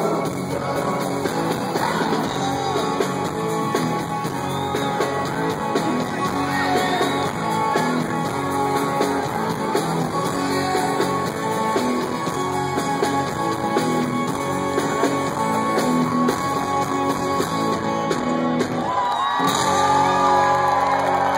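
A live rock band playing through a PA, with electric guitars, drums and a lead vocal, heard from the audience through a phone's microphone. Near the end the music breaks off and the crowd cheers and whistles over a ringing final chord.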